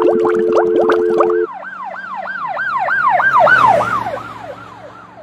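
Bubble-themed outro sound effect: a string of quick warbling pitch sweeps, each rising and falling, that slow down and fade out. Under them a held electronic chord cuts off about a second and a half in.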